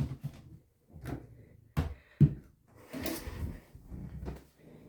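Knocks and clatter of soap and shampoo bottles being picked up and set down around a bathtub, with two sharp knocks about two seconds in, the second the loudest, then a stretch of rustling and shuffling.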